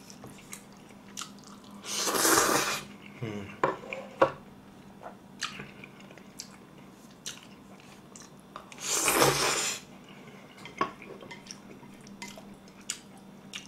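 A person slurping thick curry-sauced Chinese-style noodles: two loud slurps, each about a second long, about 2 and 9 seconds in. Between them come wet chewing and mouth clicks.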